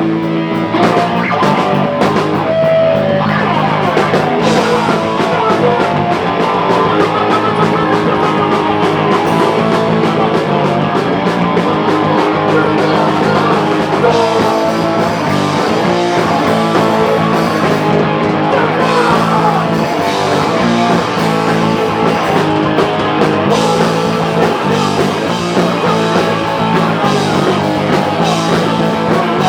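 Live rock band playing loudly: distorted electric guitars, bass and drums, fast and continuous.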